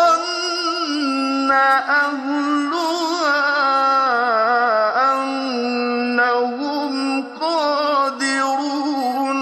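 A man's solo voice in melodic Quran recitation, drawing out long vowels with wavering, ornamented pitch. There is a brief break a little after seven seconds in.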